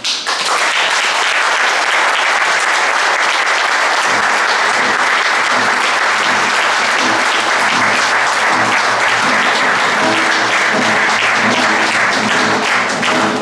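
Audience applauding steadily after a song. From about four seconds in, a classical guitar is played softly underneath the clapping as the next song's introduction.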